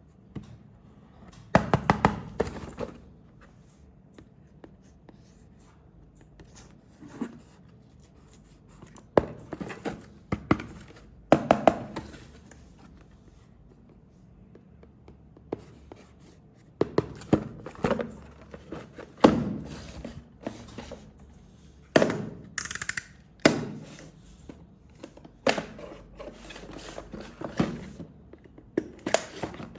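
Hands handling plastic toy parts and packaging, making irregular clusters of clicks, taps and knocks with quiet gaps between, and a brief scrape about two-thirds of the way through.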